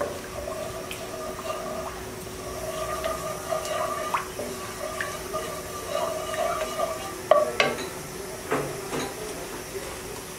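Wooden spatula stirring melting ghee in a hot nonstick pan: intermittent scraping against the pan with a few sharp taps, the loudest about three quarters of the way through.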